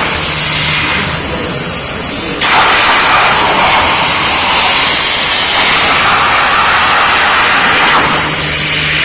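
OHA SL 1325 CNC cutting machine cutting steel sheet: a loud, steady hiss starts suddenly about two and a half seconds in as the cut begins and drops away near the end, with a quieter machine hum before it.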